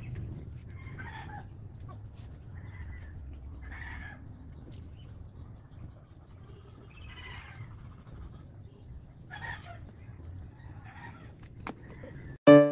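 Chickens clucking now and then, about six short calls spaced through a steady low hum. Piano music starts at the very end.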